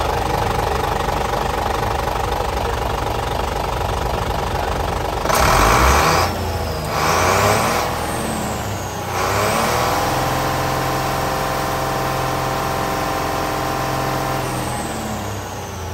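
Isuzu Giga truck's 6SD1 inline-six diesel engine idling steadily, then revved: two quick blips of the throttle about five and seven seconds in, then held at a higher speed for several seconds before dropping back toward idle near the end.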